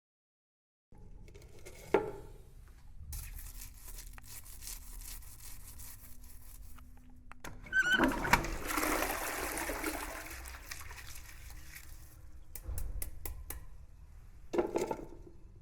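Household water running and rushing for a few seconds, loudest about halfway through. It is framed by knocks near the start and end, with a run of sharp clicks shortly before the final knock.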